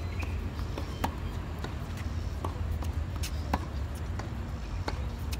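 Tennis ball being struck by rackets and bouncing on a hard court in a practice rally: a string of sharp pops, roughly one every half second to a second, over a low steady rumble.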